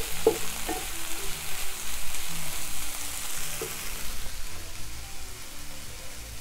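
Spiced tofu and vegetables sizzling in a frying pan over low heat, with a little water in the pan. A wooden spatula knocks against the pan a few times in the first second while stirring, and the sizzle eases off after about four seconds.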